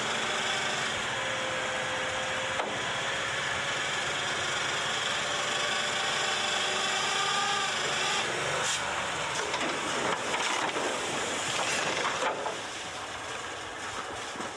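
Old dump truck running with its hoist raising a loaded bed, under a heavy hiss, with a faint whine that rises slowly in pitch. From about eight to twelve seconds in come creaks and knocks as the truck tips back onto its rear wheels with its front in the air.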